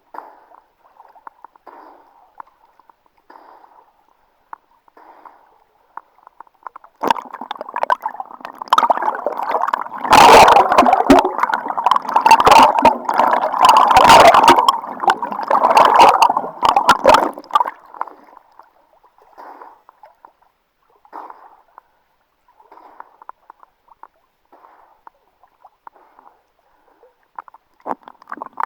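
Sea water splashing and gurgling around a swimmer. A loud stretch of rough splashing runs from about seven to eighteen seconds in, with faint, muffled water sounds before and after it.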